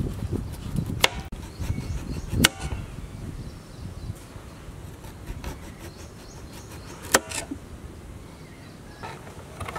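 A small knife slicing a raw potato over a plastic cutting board, with three sharp taps of the blade or the falling slices on the board.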